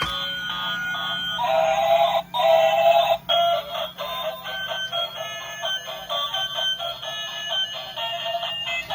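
A tinny electronic melody of short, quickly changing notes with a synthetic, voice-like timbre.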